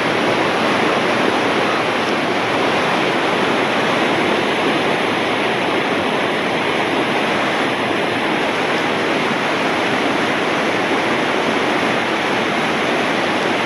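Whitewater rapids rushing steadily and loudly, churning around a swimmer held in the current.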